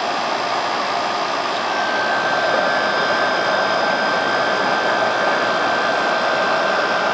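Haier 5200 BTU window air conditioner running with its cover off: a steady rush of air from its fan and the running of the unit. A faint high steady tone joins about one and a half seconds in.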